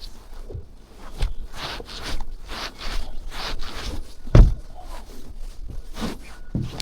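Footsteps crunching through deep snow, a step about every half second, with one heavy thump a little past halfway.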